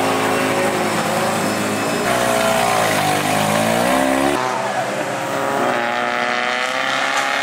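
Mazda RX-7 FD3S drift car's engine running at high revs, the pitch dipping and climbing back up about halfway through, with an abrupt change in the sound about two-thirds of the way in.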